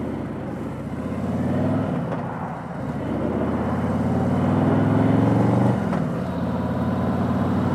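Harley-Davidson touring motorcycle's V-twin engine pulling under way, its pitch climbing, dipping about two seconds in, climbing again and dropping suddenly near six seconds.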